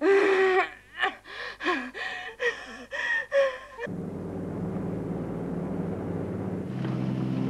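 A woman gasping and moaning in pain in several short pitched cries. About four seconds in, this cuts off and gives way to the steady drone of a twin piston-engined propeller airliner in flight.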